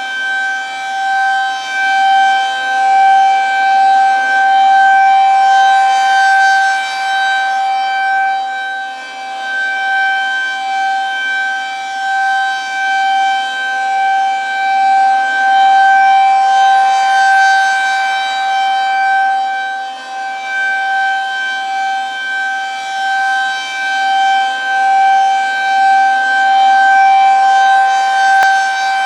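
Federal Signal 2001-SRN outdoor warning siren sounding the full-alert signal, a steady tone held at one pitch. The siren rotates at 6 RPM, so its sound swells and fades about every ten seconds as the horn turns toward and away.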